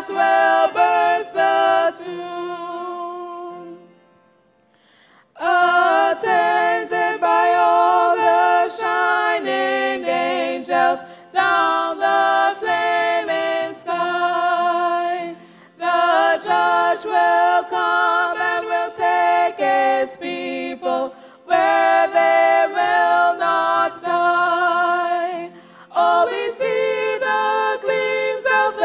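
Two women singing a song together into microphones, unaccompanied. The singing fades to a brief break a few seconds in, then carries on in phrase after phrase.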